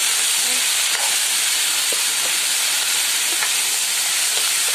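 Potato-and-pea curry sizzling in a pan on the fire: a steady hiss with a few faint pops.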